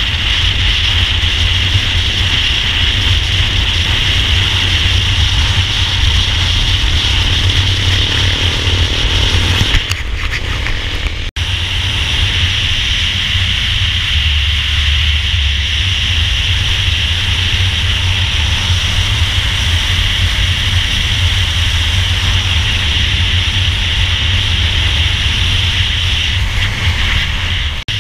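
Motorcycle on the move: steady engine and road noise with a constant rushing hiss. A faint rising engine note comes just before an abrupt break about ten seconds in, then the steady riding noise resumes.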